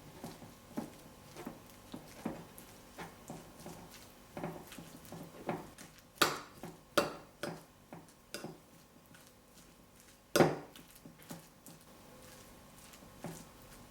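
Kitchen utensils and dishes being handled: irregular light knocks and clinks, with louder sharp clacks about six, seven and ten seconds in.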